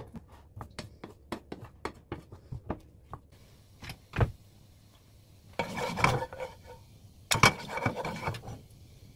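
A wooden spoon tapping and clicking against a bowl as beaten egg with chopped wild chives is stirred, a quick run of light clicks. A single knock follows a little after four seconds, then a wooden spatula scraping across a non-stick frying pan in two longer strokes, spreading oil.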